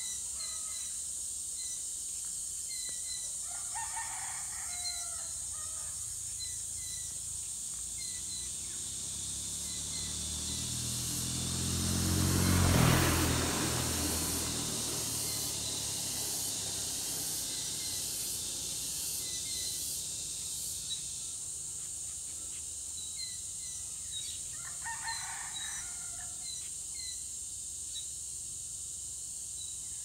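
A rooster crows twice, about four seconds in and again near the end, over short repeated chirps of small birds and a steady high insect drone. About halfway an engine passes, growing to the loudest point and then fading.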